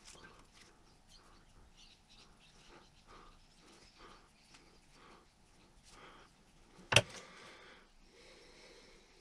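Quiet workbench handling: small taps and rustles of a hand-held clamp and fine paintbrush at work on a lure, with one sharp knock about seven seconds in.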